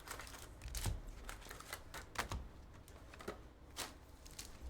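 Trading cards being handled on a table: a loose, irregular run of light clicks and taps as cards are flipped through and set down.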